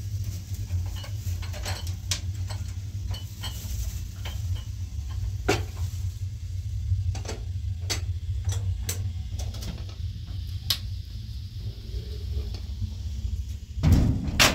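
Scattered light clinks and knocks of metal pots, a kettle and other kitchenware being handled, over a steady low rumble. A louder clatter near the end as stacked pots and a metal tray knock together.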